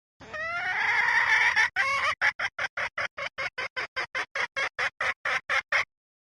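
Red junglefowl hen calling: one drawn-out wavering call, then a quick run of short clucks, about four a second, that stops abruptly. This is a hen call used as a decoy to lure wild junglefowl cocks.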